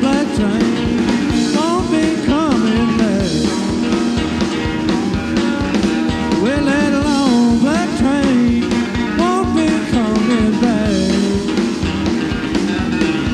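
A rock-and-roll band playing live, with electric guitar playing bent notes over a steady band backing.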